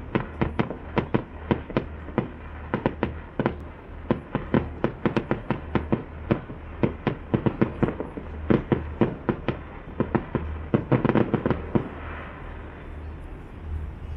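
Fireworks display: a rapid barrage of shell bursts, several bangs a second, thickening into a dense crackle about eleven seconds in and then dying away. A steady low rumble runs underneath.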